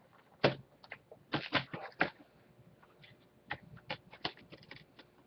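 Hands handling a Blu-ray box set's packaging and discs: a sharp knock about half a second in, then irregular clicks, taps and rustles.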